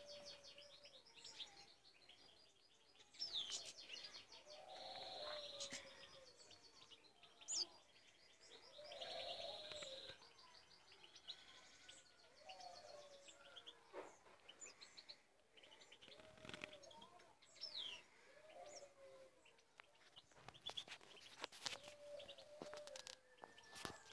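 Faint small-bird calls: rapid chirping trills and short falling whistles, with a lower wavering note coming back every couple of seconds.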